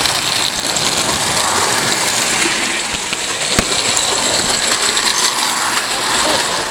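Marx Commodore Vanderbilt toy locomotive running along its track with a steady mechanical rattle, uncoupled from its cars. A single sharp click comes about three and a half seconds in, and the rattle stops near the end.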